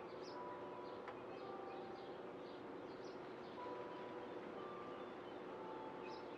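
Faint outdoor ambience: birds chirping in the distance with quick high notes, among scattered short clear notes at varying pitches, over a steady low hum.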